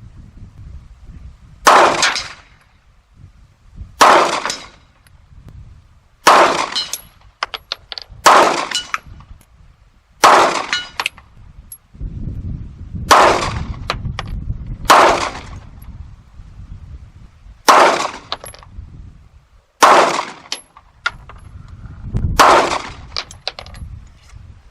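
Glock 45 9mm pistol fired ten times at a slow, steady pace, about one shot every two to two and a half seconds. Some shots are followed by a faint high ring from the steel gong being hit.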